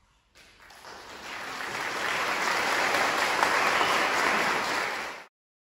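Audience applause that starts about half a second in, swells over the next couple of seconds and is cut off abruptly near the end.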